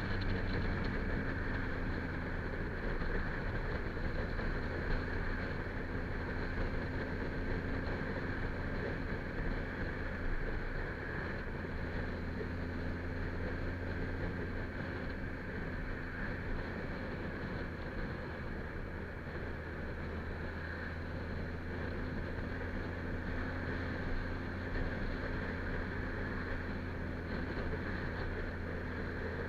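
Kawasaki Z1000's inline-four engine running steadily at a cruise, a low drone with wind rushing over the microphone.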